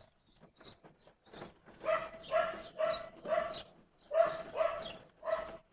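A dog barking, a run of about seven short barks at roughly two a second, after a few faint small sounds.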